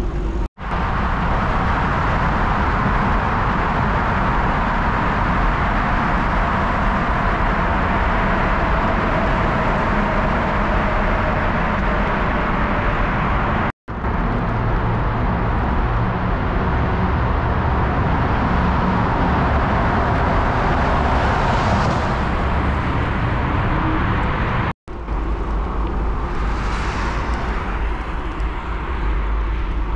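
Wind rushing over a GoPro's microphone and road noise while riding a bicycle along a road, with car traffic passing. The sound drops out completely for an instant three times.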